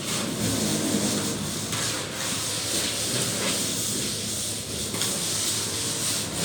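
Plastering trowel scraping and rubbing across wet plaster on a wall, a rasping hiss in long strokes of about a second and a half to two seconds each.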